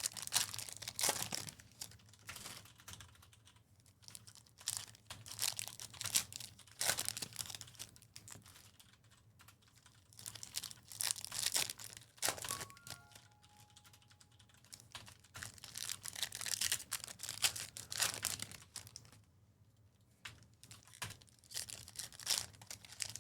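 Typing on a computer keyboard in bouts of rapid key clicks with short pauses between. About halfway through, a brief electronic chime of a few short tones sounds.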